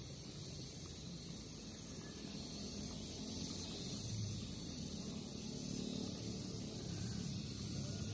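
A steady, high insect chorus that swells and fades evenly about twice a second, over a low rumble.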